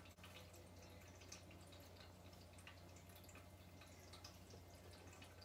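Near silence: room tone with a faint steady low hum and scattered faint ticks.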